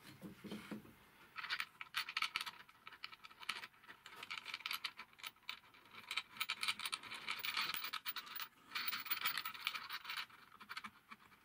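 Rapid, scratchy clicking and scraping in several bursts, from hands working at the underside of a drill press's metal table.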